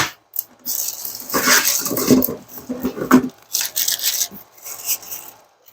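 Packaging rustling and crinkling as the doweling joiner's accessories are unwrapped and handled, with a sharp click at the start.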